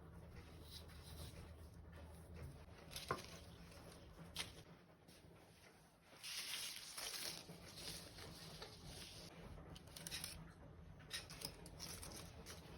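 Faint handling sounds: two light clicks a little apart, then soft rustling a little past halfway, with smaller rustles near the end.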